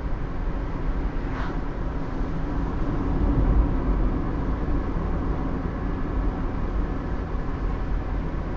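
Steady low rumble of a vehicle travelling along a road, with a faint brief hiss about a second and a half in and a slight swell a few seconds in.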